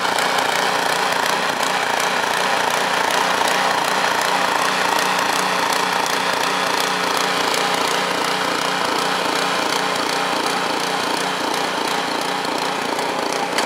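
Small gasoline engine of a two-stage snowblower running steadily at a constant speed.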